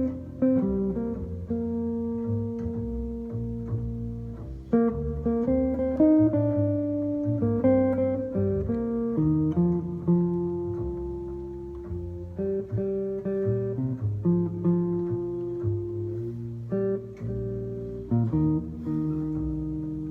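Solo guitar playing a chord-melody arrangement: plucked chords with the melody on top, a new chord or melody note struck about every second and left to ring.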